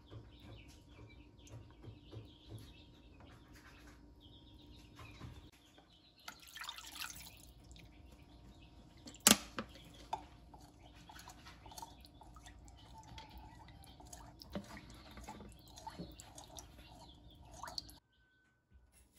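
Chickens pecking at food: irregular light taps and clicks, with one sharper click about nine seconds in and faint chirps. The sound cuts out for about a second near the end.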